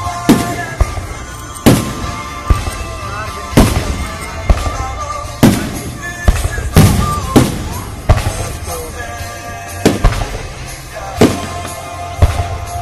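Aerial firework shells bursting overhead: about a dozen sharp booms at irregular intervals, over music playing in the background.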